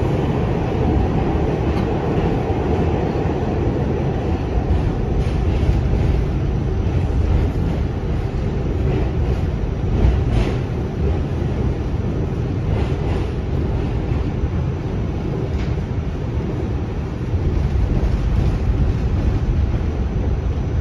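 New York City subway A train heard from inside a moving car: a steady loud rumble of the wheels on the track, with a few sharp clacks scattered through it, the loudest about ten seconds in.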